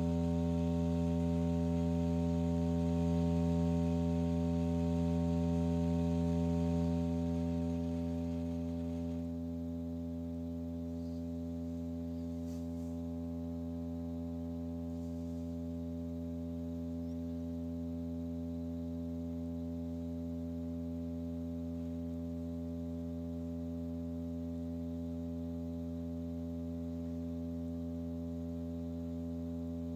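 Steady low electronic tone with a stack of evenly spaced overtones, the kind of drive tone played to vibrate a cymatics surface into patterns. About eight seconds in, the upper overtones fade and it settles a little quieter, then holds steady.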